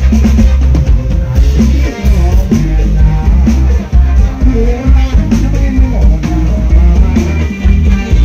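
Live Thai ramwong sam cha dance music from a sound-truck band: a drum kit with cymbals over a heavy bass line, played loud through stacked loudspeakers.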